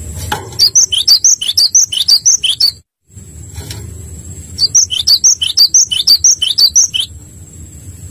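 Gelatik batu (cinereous tit) singing two loud bursts of quick, high, falling chirps, about four a second, with a brief gap between the bursts.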